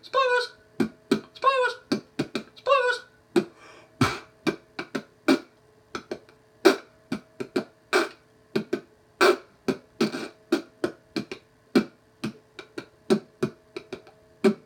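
A run of sharp clicks and knocks in an uneven rhythm, about two to three a second. The first few are paired with short pitched, voice-like sounds. A faint steady hum runs underneath.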